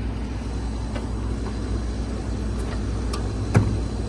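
Steady low machinery rumble with a few faint clicks and one sharp knock about three and a half seconds in.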